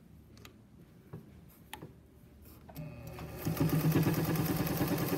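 A few light clicks, then about three seconds in a 1950s Pfaff 130 sewing machine starts up and runs steadily, sewing a straight stitch.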